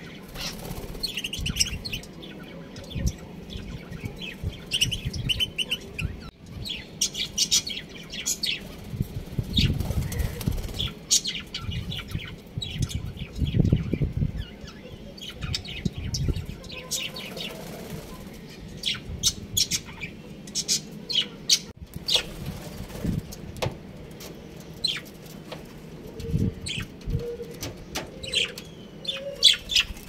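Budgerigars chirping and twittering in many short high calls, with wing flapping and fluttering between them. A few lower calls come near the end.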